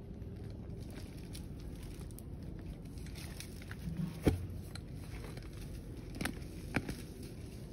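A pipe being jabbed into packed soil to dig out a hole, giving a few sharp knocks: the loudest about halfway through and two smaller ones near the end, over a steady low background noise.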